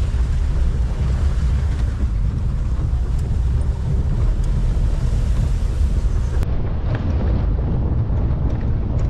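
Wind buffeting the microphone over the steady engine and road rumble of a moving safari vehicle.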